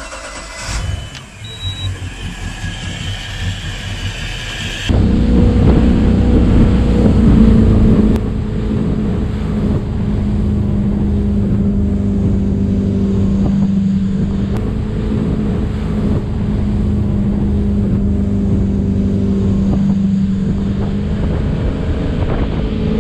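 Volvo Penta 5.7 GXi V8 inboard engine starting on the key and idling, on a test run after a thermostat replacement to cure overheating. About five seconds in it switches abruptly to the engine running steadily under way at speed, with water rushing along the hull; the pitch briefly rises and falls a few seconds later.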